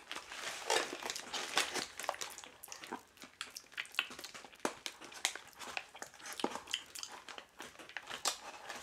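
Cardboard box being handled and pressed shut: irregular rustling, scraping and small clicks of cardboard.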